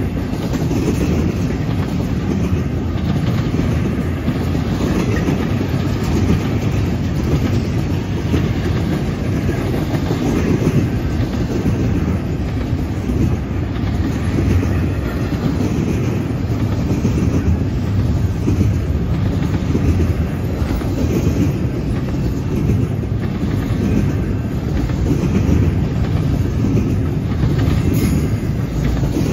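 Double-stack container well cars of an intermodal freight train rolling past steadily, their wheels running over the rails.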